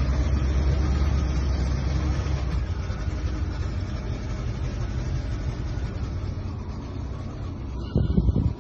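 Large old sedan's engine running, its low sound fading gradually over several seconds. A short louder sound comes near the end.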